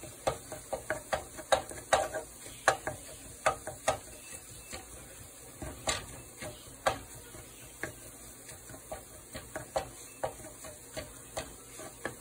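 A wooden slotted spatula scrapes and taps against a ceramic-coated frying pan, chopping and stirring scrambled egg and prawns, with irregular knocks several times a second. A faint sizzle of frying runs underneath.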